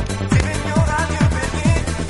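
Electronic dance music with a fast, steady kick drum, about two and a half beats a second, under a busy synth melody.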